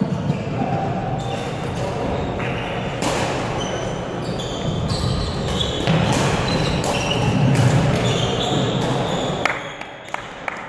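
Badminton rally: rackets striking the shuttlecock in sharp hits, with sports shoes squeaking on the wooden gym floor and a steady background of hall noise. The play eases off near the end.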